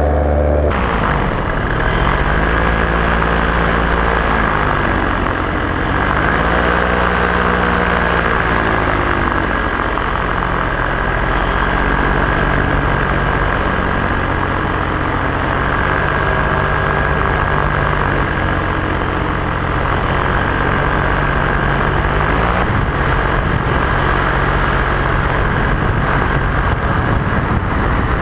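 Paramotor's two-stroke engine and propeller running in flight, the pitch dropping and climbing again in slow swells as the throttle is eased and opened, over a steady high whine and rushing air.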